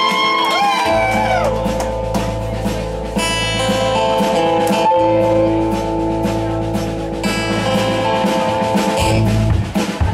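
Live band music: guitars hold ringing notes over a steady low bass tone, and the drum kit comes in with a beat near the end.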